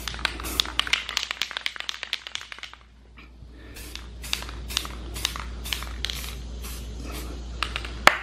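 Aerosol can of matte black spray paint spraying in rapid short hissing spurts, about three or four a second. They break off briefly about three seconds in and go on more slowly, and there is a sharp click near the end.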